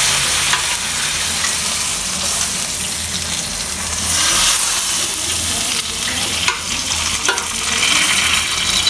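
Hot meat juices sizzling steadily in an aluminium roasting pan as sauce is spooned over a roast, with a few light clicks of the metal spoon against the pan.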